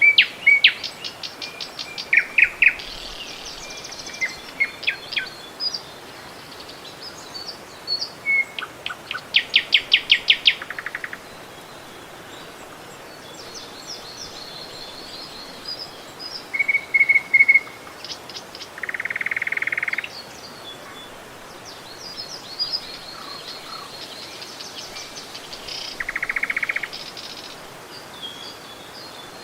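Several songbirds singing and calling, with rapid trills of repeated notes, short chirps and a few buzzy trills, over a faint steady rushing background.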